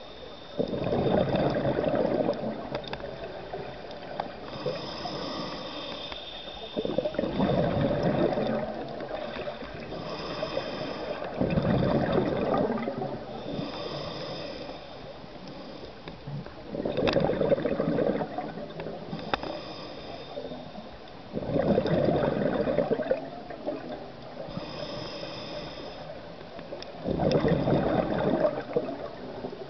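Scuba diver breathing through a regulator underwater: a hiss on each inhale, then a loud burst of bubbling exhaust bubbles on each exhale. The cycle repeats about every five seconds, six exhales in all.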